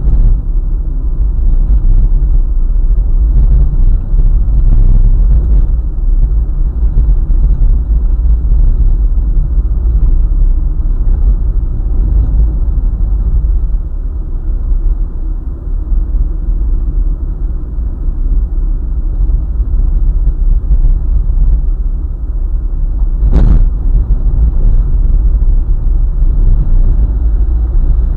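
Steady low road rumble of a vehicle driving on the highway, tyre and engine noise heavy in the bass, with a single short sharp knock about five seconds before the end.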